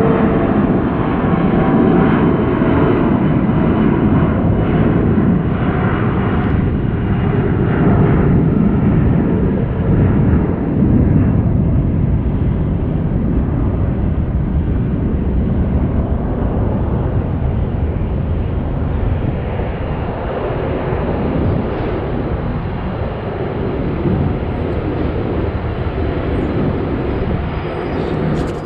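Airliner's engines running loud as it passes close, a deep rumble with a few whining tones in the first ten seconds that fade away.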